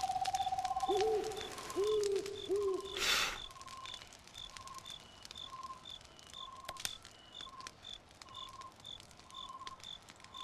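Cartoon outdoor nature ambience of animal calls: a trilling call and three low cooing hoots early on, a brief rush of noise about three seconds in, then short high chirps repeating about twice a second.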